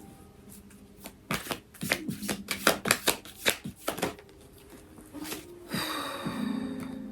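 Tarot cards being shuffled by hand: a quick run of sharp card snaps, then a softer swish of cards near the end, over a soft steady music drone.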